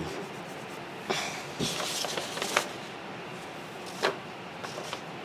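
A few light clicks and knocks as small machined metal parts of a ball-turner kit are handled and set down on a bench mat.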